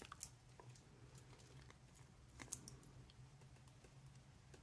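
A few faint small clicks from the crown of a Debert GMT watch with a Seiko NH34 automatic movement, turned in its first pulled-out position to set the date: one click near the start and a small cluster around the middle, over a low steady hum.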